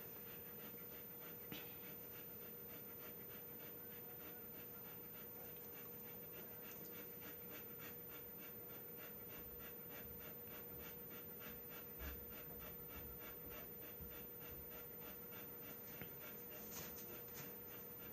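Faint, quick rhythmic panting, about two to three breaths a second, over a steady faint hum.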